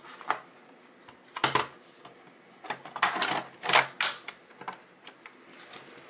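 Sharp plastic clicks and knocks from handling the ThinkPad T520 laptop's case and a screwdriver: one click early, another about a second and a half in, then a quick run of clicks and knocks bunched in the middle.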